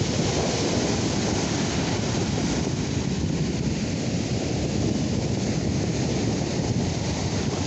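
Ocean surf breaking on a sandy beach, with wind buffeting the microphone: a steady rush of noise with no distinct events.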